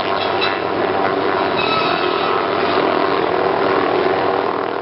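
Hughes 500 helicopter running with its hanging rig of circular saw blades spinning: a loud, steady din of turbine, rotor and saw.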